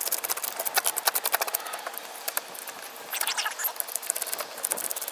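Scales being scraped off a buffalo fish with a scaling tool: a fast, continuous run of short scraping strokes.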